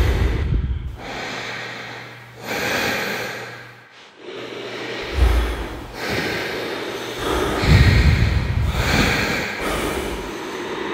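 Close-miked human breathing, recorded and worked into an installation soundtrack: a string of slow, loud breaths in and out, several of them with a deep rumble as they begin.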